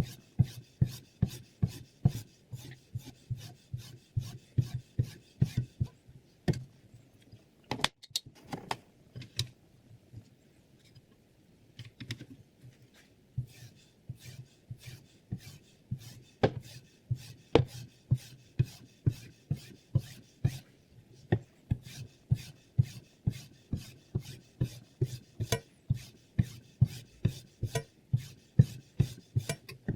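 Knife blade drawn across a sharpening stone in quick, even, repeated strokes, about three a second, with a short pause about ten seconds in.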